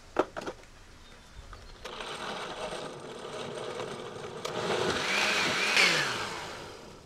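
Countertop electric blender puréeing tomatillos, chiles, onion and garlic with broth into a salsa verde. It starts about two seconds in, grows louder past the middle, then winds down with a falling pitch and stops near the end. Two short knocks come just at the start.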